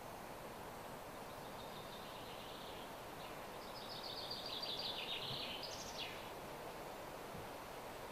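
A bird calling a phrase of rapid, repeated high notes that grows louder, drops slightly in pitch and ends on a quick rising note, over a steady outdoor background hiss.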